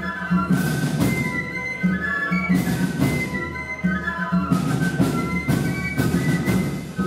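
Flute band playing a lively tune: many flutes in unison carrying the melody, with drums and sharp percussion strikes underneath.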